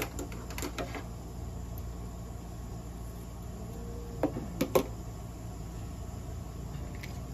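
Bandaging a cat's leg: light clicks and rustles near the start, then three sharp clicks about four seconds in from a pair of scissors cutting the pink self-adhesive bandage, over a steady low hum.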